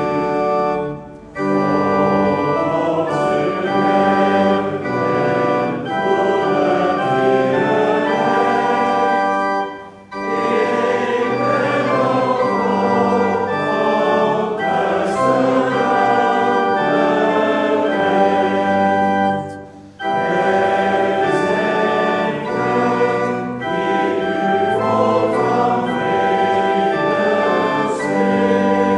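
Church congregation singing a hymn with organ accompaniment, line by line, with a brief break between phrases about every ten seconds.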